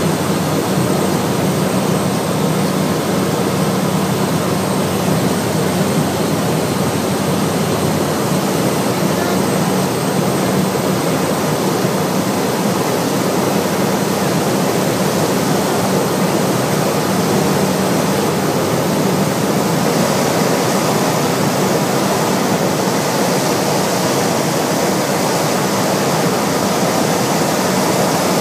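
Cessna 208B Caravan's single turboprop engine and propeller heard from inside the cockpit on final approach: a loud, steady drone.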